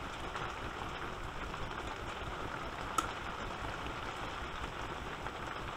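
Heavy rain pouring down, a steady hiss with no change in level, with a single small click about three seconds in.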